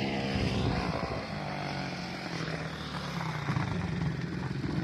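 Small quad bike (ATV) engine running, its pitch settling lower, then rising and getting louder about three and a half seconds in as the throttle opens.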